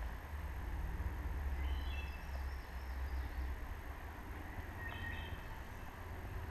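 Woodland ambience: a steady low rumble on the microphone, with faint bird calls about two seconds in and again about five seconds in.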